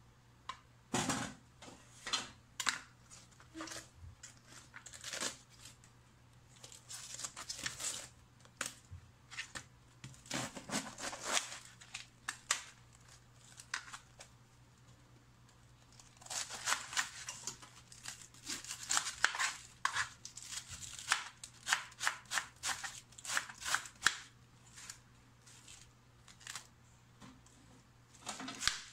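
Raw cabbage leaves crunching and tearing as they are pulled apart by hand, in irregular bursts of crisp crackles with quiet pauses between.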